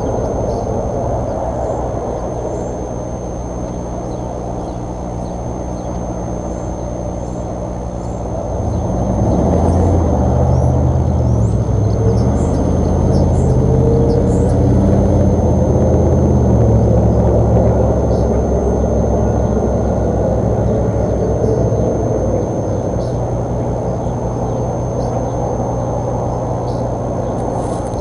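A low, steady engine rumble that grows louder about nine seconds in and eases off again after about eighteen seconds, with faint bird chirps over it.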